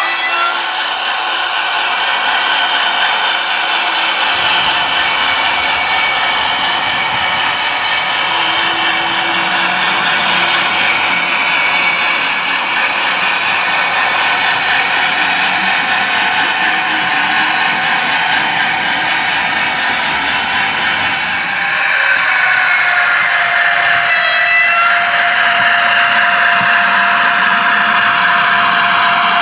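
H0-scale model trains running: the steady mechanical whirr and rattle of model locomotive motors and wheels rolling over the track. About 22 seconds in, a steady whine joins as a diesel locomotive comes close.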